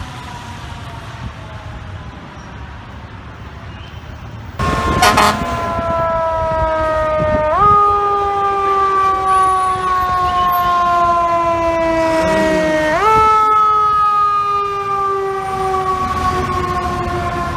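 Passing fire truck's siren: its pitch jumps up sharply about 7.5 s and 13 s in and slowly winds down after each jump. It is preceded by a sudden loud horn blast about 4.5 s in.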